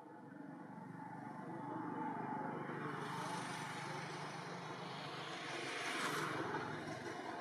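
A motor vehicle passing by: a steady rush of engine and tyre noise that builds over the first two seconds and is loudest about six seconds in.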